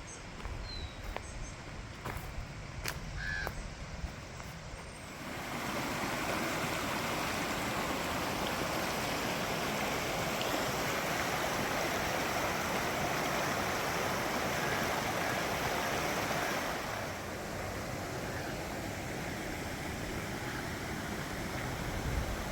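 Mountain brook water rushing steadily, growing louder about five seconds in and easing a little near the end, with a few short bird calls in the first seconds.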